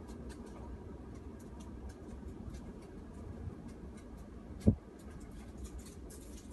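Low, steady wind rumble on an outdoor night recording, with scattered faint ticks and crackles and one sharp thump a little over two-thirds of the way through.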